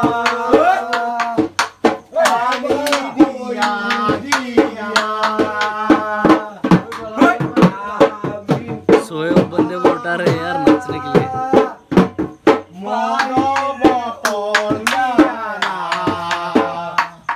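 A song with a voice singing long, wavering held notes over quick, dense drum strokes.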